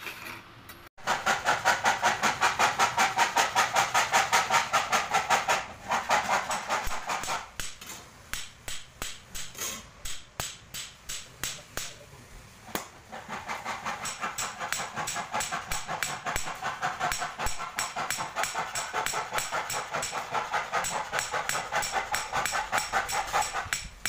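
Small hammer striking a brass sheet disc on a steel stake in quick, even blows, about four a second, dimpling a hammered pattern into the metal. The blows are heaviest at first, thin out for several seconds, then settle into a steady run.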